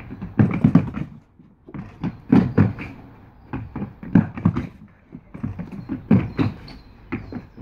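Two people sprinting on wooden decking: fast running footsteps knocking on the hollow boards in quick irregular clusters.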